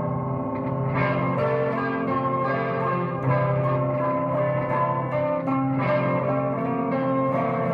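Music of ringing, plucked-string notes that sustain and overlap like an electric guitar's. New notes are struck about a second in and again a little after three seconds.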